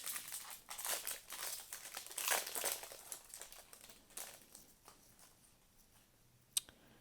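Foil trading-card pack crinkling and tearing open, a run of quick rustles that fades out after four or five seconds. A single sharp click near the end.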